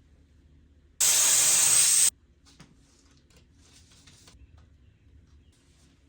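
A single one-second burst of compressed air from an air-duster can, a loud steady hiss that starts and stops abruptly, used to blow dust out of a laptop. A few faint handling rustles and clicks follow.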